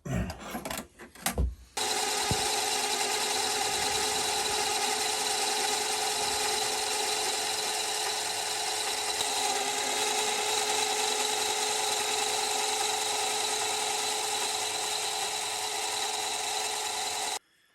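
A few handling knocks, then a mini lathe running steadily, turning a metal bar down in diameter. Its motor gives a constant whine. It starts suddenly about two seconds in and stops abruptly shortly before the end.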